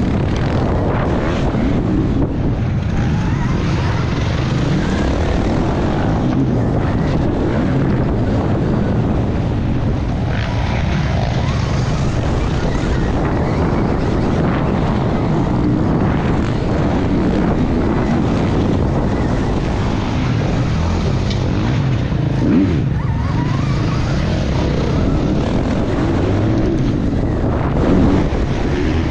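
Stark Varg electric motocross bike ridden hard on a dirt track: a steady rush of wind over the helmet camera's microphone and tyres over loose dirt, with a faint whine from the electric motor that rises and falls with the throttle and no combustion engine note.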